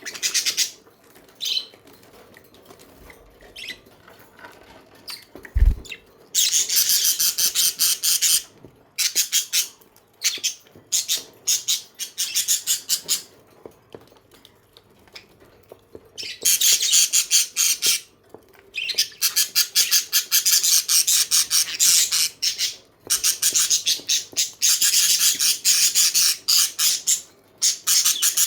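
Budgerigars chattering in long runs of rapid, high-pitched chirps and squawks, broken by short pauses. A single low thump sounds about six seconds in.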